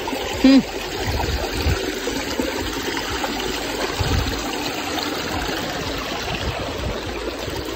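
Shallow mountain stream rushing and splashing over rocks, heard close up. A short pitched sound just after the start, and a few low thumps later on.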